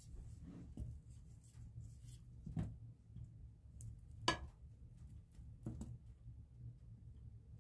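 Wooden spatula pushing a block of butter around a nonstick frying pan, with a few faint taps and scrapes, two of them a little louder, over a low steady hum.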